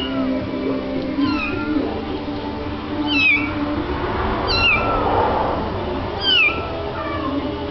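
Blue Munchkin kitten mewing repeatedly: about five short, high-pitched mews that each fall in pitch, spaced a second or two apart.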